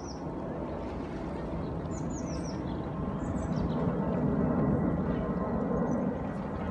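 A small bird's short falling chirps in quick runs of three or four, repeated every second or two, over a steady low rushing noise that swells in the middle.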